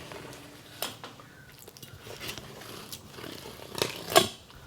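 Knife cutting a fillet off a lingcod, scraping and crunching through flesh and soft rib bones in short strokes, with a sharp click about four seconds in.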